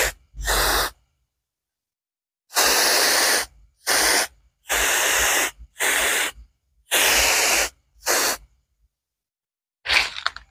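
Hand sprayer misting insecticide onto bonsai foliage in about eight short spray bursts, each under a second, with brief pauses between, including a longer pause about a second in and another near the end.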